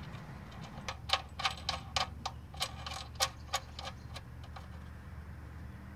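A quick run of light metallic clicks, about four or five a second, for a little under three seconds, as the oil drain plug is turned back into the oil pan of a BMW M20 inline-six.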